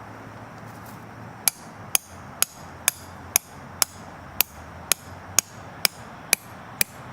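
Hammer blows driving a tent stake into the ground: about a dozen sharp, even strikes, roughly two a second, starting about a second and a half in.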